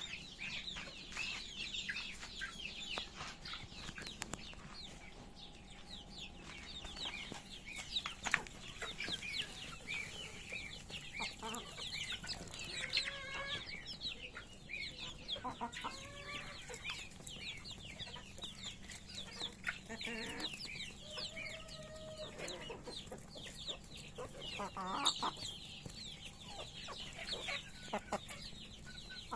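Chickens clucking and calling while feeding, with many short high chirps throughout and a few louder drawn-out calls.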